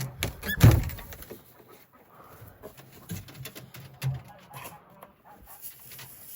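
Hay being handled with rustles and small clicks and knocks, and a loud thump about a second in. A short bird call, like a hen's, is heard just before the thump.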